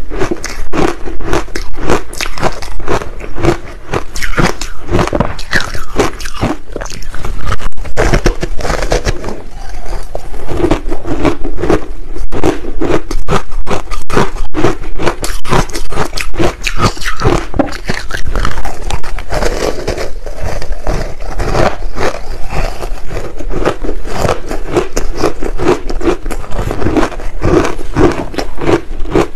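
Soft frozen ice ball coated in green barley powder being bitten and chewed close to the microphone: a dense, continuous run of wet crunches and crackles as the soft ice breaks up in the mouth.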